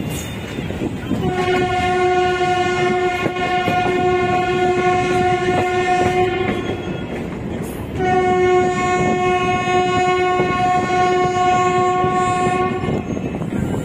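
Indian Railways locomotive horn giving two long steady blasts of about five seconds each. The train's wheels rumble and clatter on the track underneath.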